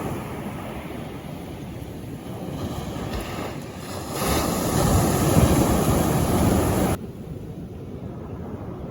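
Sea waves washing ashore, with wind buffeting the microphone. A wave surges louder about four seconds in, and the sound cuts off suddenly about seven seconds in, leaving quieter noise.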